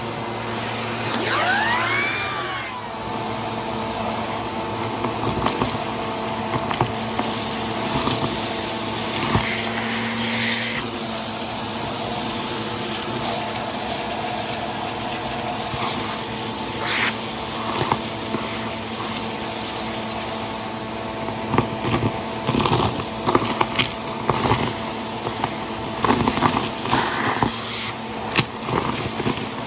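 Bissell vacuum cleaner running steadily, with a brief rise and fall in pitch about two seconds in. Crunchy debris crackles and clicks as it is sucked up, coming thick and fast in the last several seconds.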